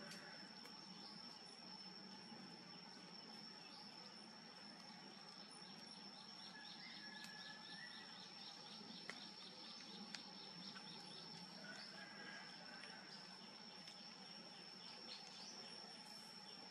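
Near silence: faint outdoor ambience with a steady high-pitched insect drone throughout and a few faint bird chirps.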